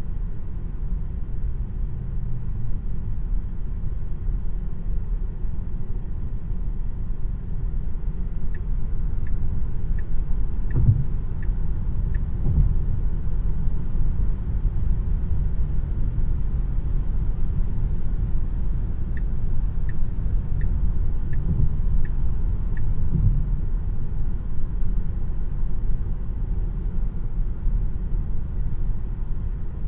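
Tesla Model 3's cabin heard while driving: steady low tyre and road rumble, with a few dull bumps from the road surface. Twice, light ticks come about one and a half a second for several seconds.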